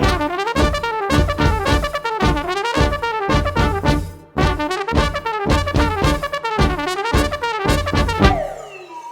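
Brass music with trumpets and trombones over a steady beat, breaking off briefly midway and fading out near the end.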